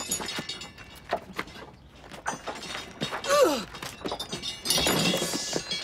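A scuffle: a string of thuds and knocks, a short falling cry from a woman about three seconds in, and a louder crashing, rustling noise near the end.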